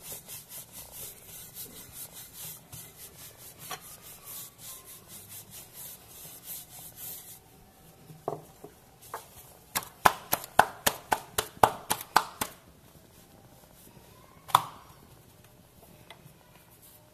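Wooden rolling pin rolled back and forth over pizza dough on a countertop, a rhythmic rubbing at about three strokes a second. After about seven seconds the rolling stops, and a run of sharp taps and knocks follows, then a single louder knock.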